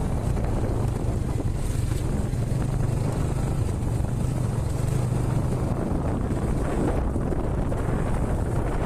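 Motorcycle engine running steadily under way, with wind buffeting the phone's microphone.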